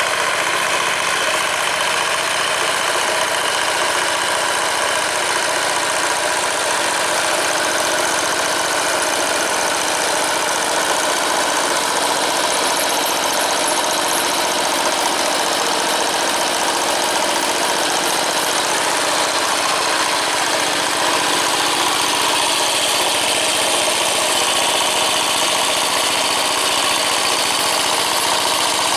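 Single-cylinder diesel engine of a two-wheel walking tractor running steadily as the machine works with its cage wheels through a flooded rice paddy.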